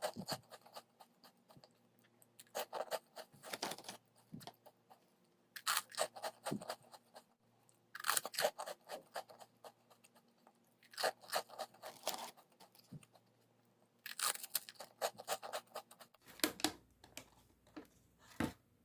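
A person chewing crunchy food close to the microphone: short spells of crisp crunching about every two to three seconds, with quiet in between.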